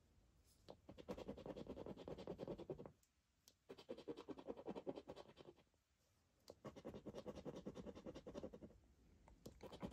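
A coin scratching the latex coating off a paper scratchcard, in three bursts of rapid back-and-forth strokes about two seconds each, with short pauses between.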